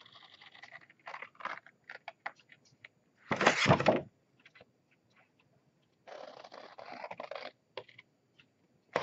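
Scissors cutting through cardstock along score lines: a series of short crisp snips and scraping paper noise, with one louder burst of paper noise about three and a half seconds in.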